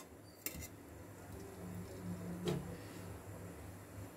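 A spoon faintly clicking against a kadai twice, about two seconds apart, as a spoonful of ghee is dropped in, over a low steady hum.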